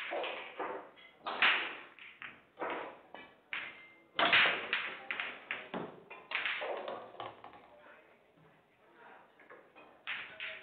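A pool break: the cue ball hits the racked balls with a sharp crack, then a rapid run of clacks as the balls collide with each other and the cushions, the loudest about a second and a half and four seconds in, thinning out after about seven seconds. A few lighter clicks come near the end.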